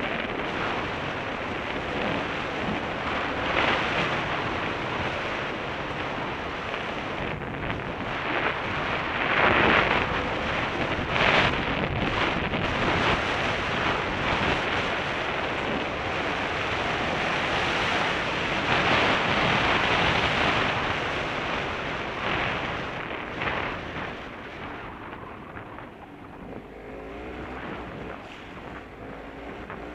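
Motorcycle running along a rough dirt track, heard through heavy wind noise on the microphone, with louder surges several times. It grows quieter over the last few seconds.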